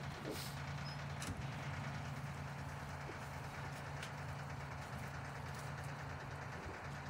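Large truck engine idling steadily, a low even hum with a few faint clicks over it.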